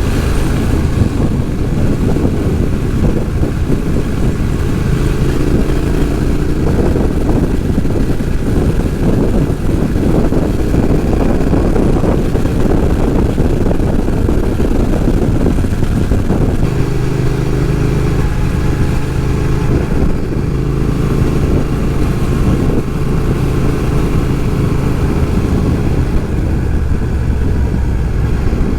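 Motorcycle engine running under way at road speed, with wind rumble over the rider's microphone. About 17 seconds in, the engine note shifts and settles at a new steady pitch.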